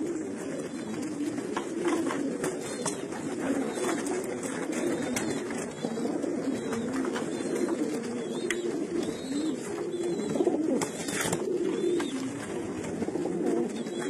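A flock of racing pigeons cooing continuously, many low coos overlapping, with a few short clicks among them.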